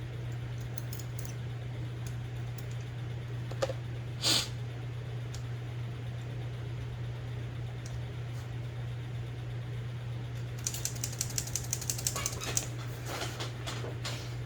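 Typewriter mechanism clicking as it is worked on: scattered small metallic clicks, a louder click about four seconds in, then a quick run of clicks about two-thirds of the way through, over a steady low hum.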